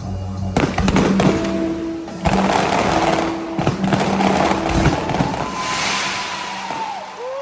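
Fireworks bursting and crackling in a dense, rapid barrage over music.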